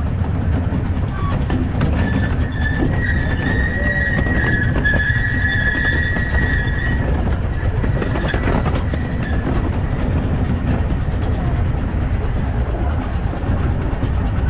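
Steam train running along the track with a steady low rumble. A high wheel squeal rises over it from about two seconds in and fades out around seven seconds in.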